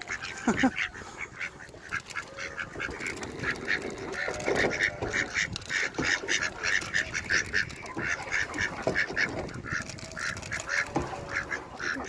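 Mallard ducks quacking in a rapid run of short calls, several a second, with a few lower, longer quacks mixed in.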